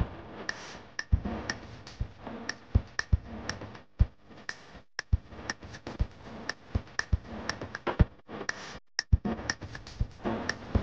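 Music with a beat of sharp percussive hits, cutting out abruptly for a moment a few times.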